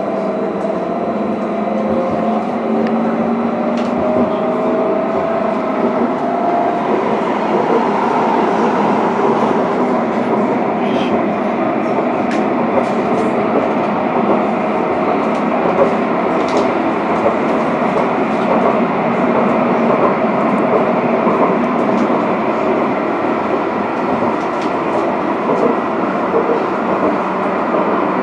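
An Edinburgh tram (CAF Urbos 3) running along its line, heard from inside the passenger cabin: a steady rolling rumble of wheels on rail. A faint, slightly rising whine from the traction drive fades out about six seconds in.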